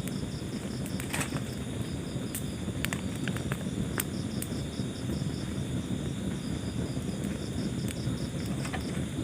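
Wood fire burning in a fireplace: a steady low rush of flames with scattered sharp crackles and pops. A high, regular pulsing chirp of several pulses a second runs behind it.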